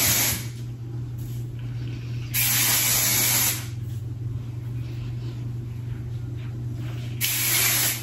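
Aerosol hairspray can spraying in three short hissing bursts: one just ending as it begins, one of about a second a little before the middle, and one near the end.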